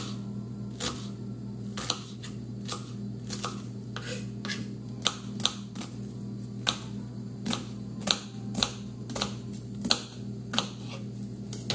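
Knife chopping a red onion on a plastic cutting board: sharp taps of the blade hitting the board, irregular at about two a second, over a steady low hum.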